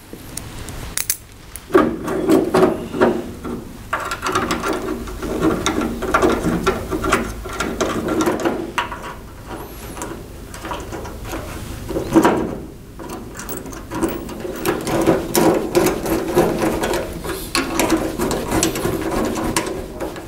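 Ratchet socket wrench clicking in rapid runs as M8 bolts are driven into a steel door hinge, with a short pause part-way through.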